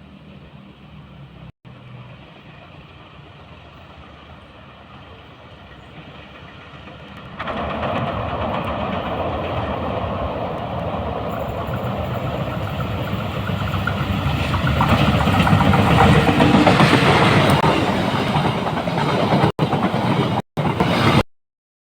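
Diesel-hauled train passing close, its wheels rattling and clicking over the rails. The train noise cuts in abruptly about a third of the way in over a faint low hum, grows louder, and breaks off in short silent gaps near the end.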